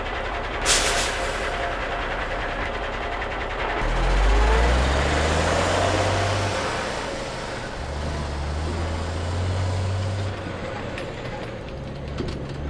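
Cartoon sound effects of a tow truck: a sharp knock about a second in, then a low engine drone from about four seconds in that swells and eases as the truck hauls a car, over a steady hiss.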